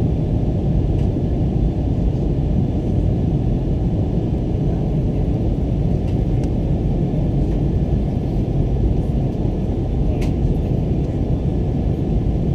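Steady low rumble of engine and airflow noise inside the cabin of an Airbus A321 in flight, picked up through the window glass by a suction-cup-mounted camera, with a faint click about ten seconds in.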